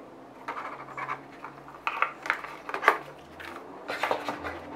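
A smartwatch and its cardboard box insert being handled: short scrapes, rustles and light clicks in scattered bursts, the sharpest a little before three seconds in and another cluster near four seconds.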